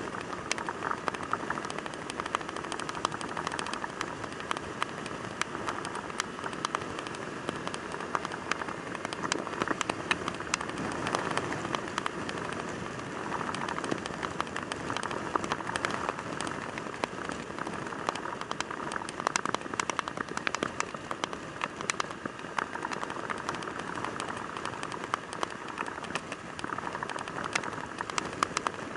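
Raindrops ticking constantly on the camera, over the steady rush of wind, road and engine noise from a motorcycle riding in the rain.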